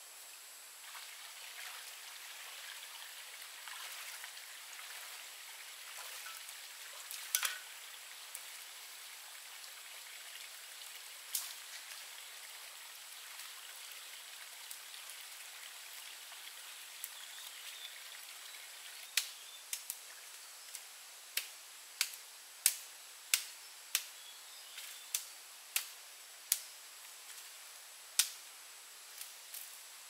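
Sharp knocks, a couple of single ones and then from past the middle a steady run of about one and a half a second, over a faint steady hiss.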